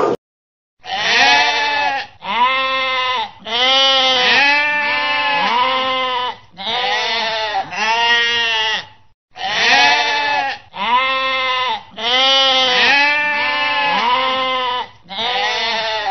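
Sheep bleating over and over, a long string of calls that each rise and fall in pitch, some running into one another, with a short pause about halfway through.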